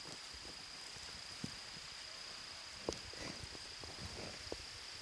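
Crickets chirping in a steady high chorus, with a few soft rustles and light knocks of movement in the middle and near the end.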